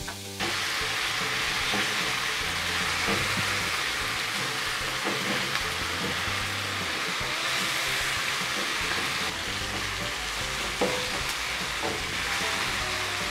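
Chopped tomatoes and green peppers frying in a non-stick wok, a steady sizzle that starts about half a second in, with a few faint clicks.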